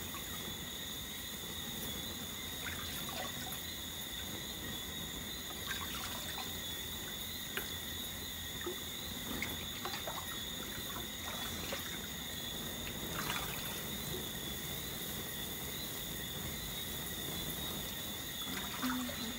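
Water trickling steadily, with faint scattered crackles and a steady high-pitched tone over it, where flames burn on the water's surface.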